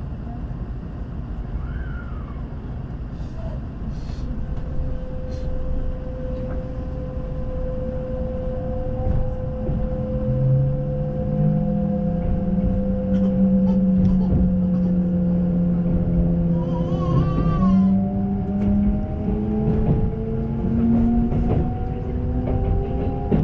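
Kintetsu electric train running, heard from inside the car: a steady low rumble with a motor whine that climbs in pitch over the last several seconds as the train picks up speed.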